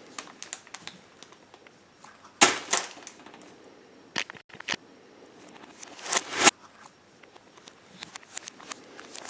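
Handling noises from a blind-box package and its paper: scattered small clicks and rustles, with two louder crinkling rustles about two and a half and six seconds in.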